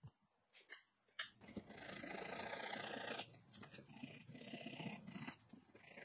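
A few light knocks, then a thin flush-cut hand saw cutting wooden spline ends flush at the corner of a wooden box in about three long sawing strokes.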